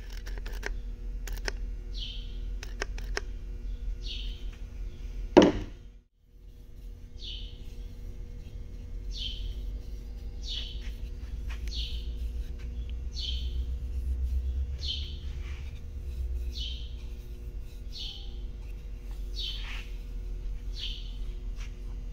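A small bird chirping over and over, short high falling chirps about once a second, over a steady low hum. A single loud thump about five seconds in, with a few light clicks before it.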